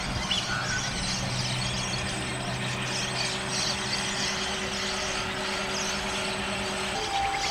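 Steady engine-like drone, a low hum on a few unchanging pitches, which cuts off about seven seconds in as a higher steady tone begins.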